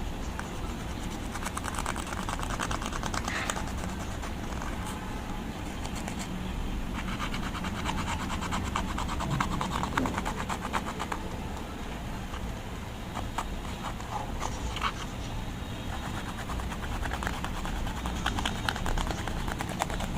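Slime being kneaded and stretched by hand, with stretches of rapid small clicks and pops from the slime, over a steady low hum.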